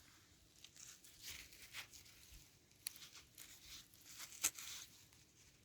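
Faint, scattered rustling and crunching of soil being handled and dug, with a couple of sharp clicks.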